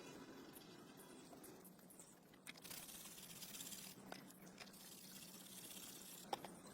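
Near silence: faint room hiss with a few soft clicks.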